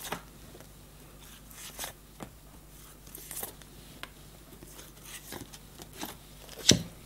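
Cardboard oracle cards being dealt one by one onto a wooden tabletop: a series of short slides and taps, the loudest a sharp tap near the end.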